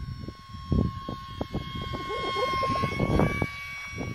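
Electric ducted fan of a small RC MiG-15 jet whining steadily in flight, a thin high tone that swells slightly in the middle, with wind buffeting the microphone.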